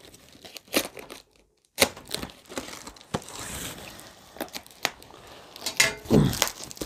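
White plastic wrapping on a cardboard box being slit with a small blade and torn open by hand: crinkling and tearing, broken by scattered sharp clicks, with a short pause about a second and a half in.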